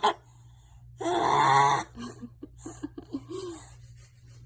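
A young child making a loud, raspy, groan-like funny noise lasting just under a second, about a second in, followed by a few soft short vocal sounds.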